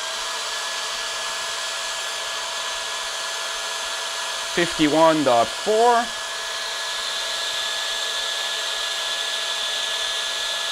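CPAP blower fan running at full speed: a steady rush of air with a steady whine over it. About two-thirds of the way through, the high hiss gets a little stronger as a 3D-printed velocity stack (bell-mouth) is fitted over its air intake.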